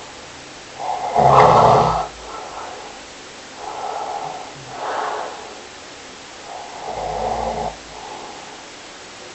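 Snoring in slow, repeated breaths about every three seconds. The loudest snore comes about a second in.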